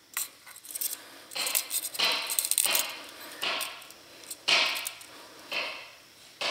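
Soldering at a small motor's terminal tabs: short scratchy, hissing bursts with small clicks, about one a second, as the soldering iron tip and solder wire are worked against the tabs.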